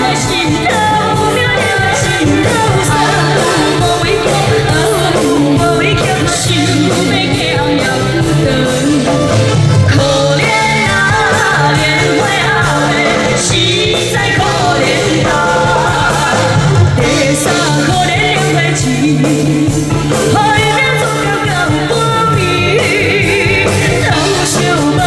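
Two female singers performing a pop song live into handheld microphones, backed by a live band with drum kit and electric guitar, amplified over a stage PA.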